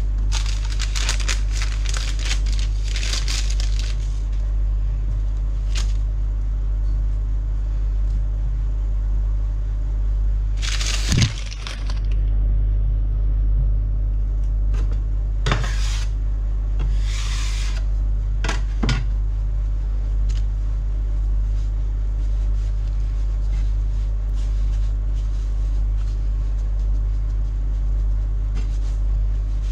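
A steady low hum with kitchen handling noises over it: rustling at first, a sharp knock about eleven seconds in, then a few brief scrapes.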